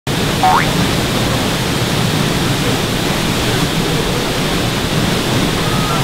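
Waterfall rushing, a loud steady roar of falling water. A brief rising chirp comes about half a second in.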